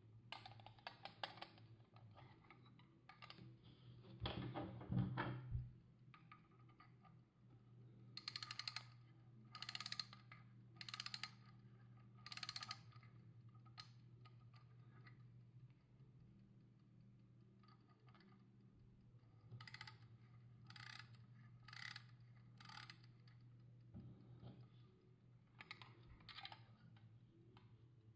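Antique French L&A carriage alarm clock being wound with its key: the mainspring ratchet gives short bursts of rapid clicking, one burst per turn, in two groups of about four turns each. A louder handling knock comes about four seconds in.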